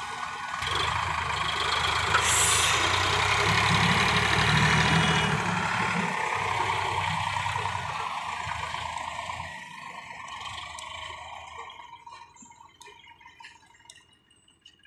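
Diesel engine of a Sonalika DI 47 RX tractor running under load as it pulls a loaded soil trolley, loudest in the first half and then fading away to near silence over the last few seconds.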